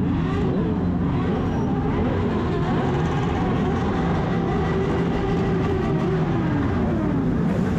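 Motorcycle engines running, one engine's note rising and falling, then holding steady before it drops away near the end.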